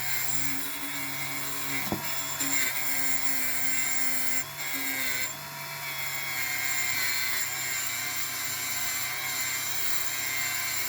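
Small handheld rotary tool running steadily, its bit rubbing against a die-cast metal toy body to take off old paint. The motor's whine shifts briefly a couple of times as the bit is pressed on and moved.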